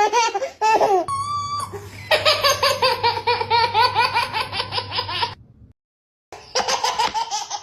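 Meme sound clips of a baby laughing, played one after another: short squealing laughs at first, then a long run of quick, rhythmic giggles, about five a second, cut off by a brief silence and followed by another laughing clip.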